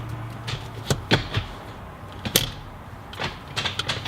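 Irregular sharp clicks and light knocks from hands working the shifter assembly, over a steady low hum.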